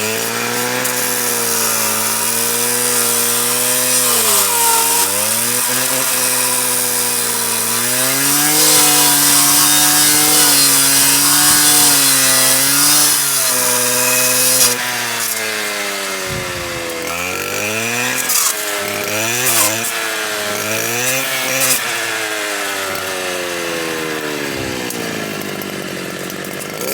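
Stihl KA 120 R powerhead driving a circular saw blade with chainsaw teeth, cutting into wood. The motor's pitch sags several times as the blade bites and recovers in between, with a strong hissing cutting noise loudest in the middle.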